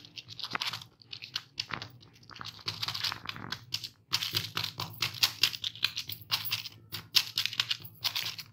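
Butter paper crinkling and rustling under hands that press and smooth a round of maize-flour dough flat, in many quick irregular rustles.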